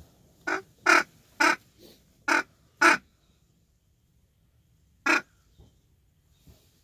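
Duck call blown in a hunting blind, sounding loud mallard hen quacks: five short quacks over about two and a half seconds, then one more about two seconds later.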